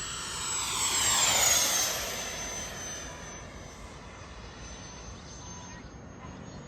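Freewing J-10 RC jet's 90mm electric ducted fan on an 8S battery making a flyby: a high whine that swells, drops in pitch as it passes about one and a half seconds in, then fades to a steadier, quieter whine in the distance.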